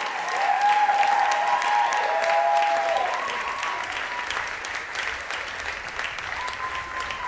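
A theatre audience applauding, with cheering voices over the first few seconds. The clapping eases off after about three seconds.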